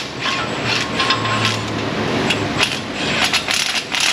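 A small power tool whirs for about a second, then a quick series of clicks and knocks follows as the plastic wheel liner's screws and push clips are worked loose.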